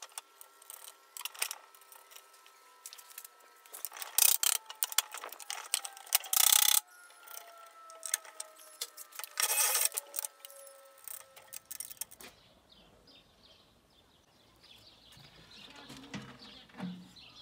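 Metal clinks, scrapes and rattles of a wrench and bolts being worked to fasten a plywood shelf to a steel grill stand, with a few louder rattling bursts. About twelve seconds in it turns much quieter.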